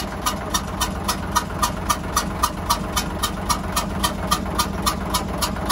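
Hyundai 6D16 inline-six diesel engine running at idle with a sharp, evenly repeating puff or clack about four times a second over the engine drone. The mechanics suspect a compression leak from a leaking valve.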